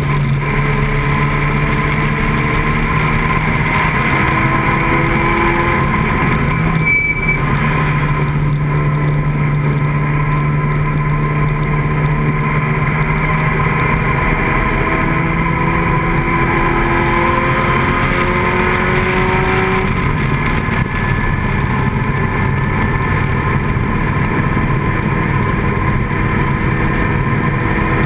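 Open-cockpit sports racing car's engine running hard at speed, heard from the cockpit. Its pitch rises in long pulls, with a brief dip about a quarter of the way in.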